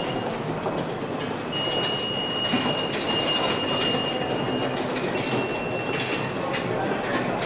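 New York subway train running through a station: a dense steady rumble with wheels clicking over the rail joints, and a thin high steady squeal that sounds for a few seconds at a time from about one and a half seconds in.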